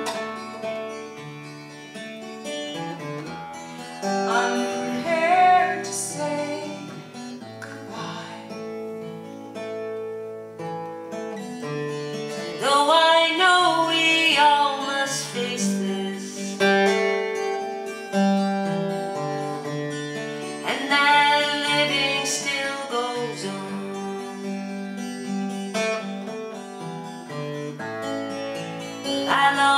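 Music: a slow song on acoustic guitar, with a woman's voice singing in stretches.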